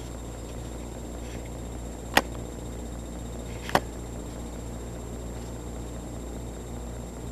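Two sharp clicks about a second and a half apart, over a steady low hum and hiss from a handheld compact digital camera's own recording; the clicks come from handling the camera.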